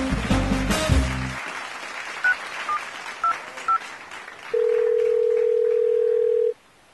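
Music ends about a second and a half in. A mobile phone's keypad then beeps four times as a number is dialled, followed by a steady ringback tone for about two seconds that cuts off suddenly.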